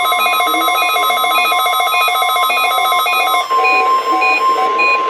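NOAA Weather Radio's steady 1050 Hz warning alarm tone, played for a Required Weekly Test, with several weather alert radios beeping over it at once. A fast beeping pattern stops about three and a half seconds in, and slower beeps about twice a second carry on over the tone.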